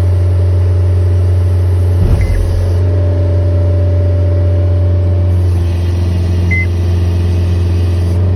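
John Deere 331G compact track loader's diesel engine running steadily with a deep hum, heard from inside the cab while its hydraulics are put through calibration. A steady mid-pitched tone joins in about three seconds in, and there is a short knock about two seconds in.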